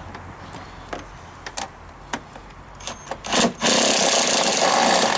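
A few light metallic clicks of a tool on the engine, then a cordless power tool whirring with a fast, even rattle, in a short blip and then a steady run of about two seconds, spinning off a valve cover nut.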